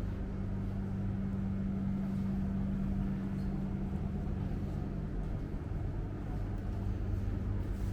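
Steady low mechanical hum at a constant pitch over a low rumble.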